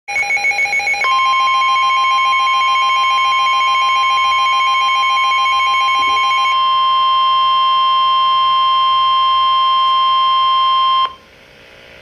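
NOAA weather alert radio sounding a severe thunderstorm warning alert. Rapid pulsing beeps come for about the first six seconds. Under them, from about a second in, runs the steady single-pitch weather radio warning alarm tone, which cuts off abruptly about a second before the end, leaving a low hum.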